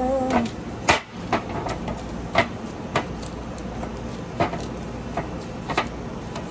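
Scattered light knocks and clicks, about seven in all and the sharpest about a second in, as pastry twists are set out on a parchment-lined metal sheet pan, over a steady low hum. A short pitched sound right at the start.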